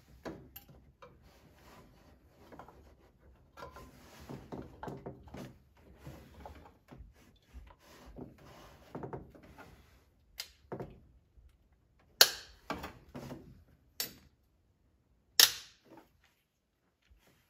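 Spark plug lead boots being pushed onto the plugs of an MG Midget engine by hand: rustling handling noise at first, then a series of sharp clicks from about ten seconds in as the boots snap home, two of them much louder than the rest.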